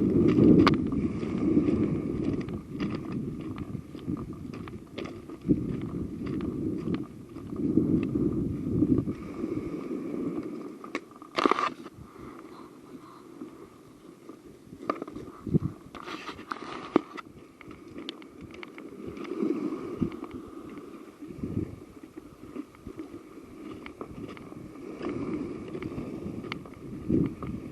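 Wind buffeting the microphone in gusts, with scattered clicks and two short rustling bursts.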